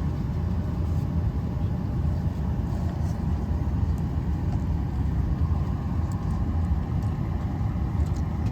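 Steady low rumble inside an airliner cabin on the ground, with a faint steady hum above it.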